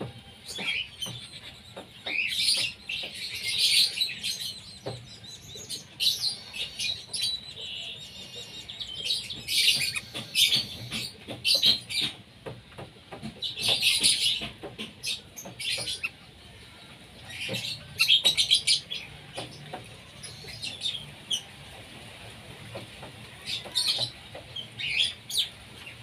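Whistling ducks with their ducklings calling: repeated clusters of high-pitched whistles and peeps, with short quieter pauses in between.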